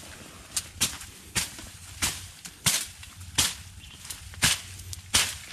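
A series of sharp knocks, about eight, coming roughly every two-thirds of a second at a steady pace.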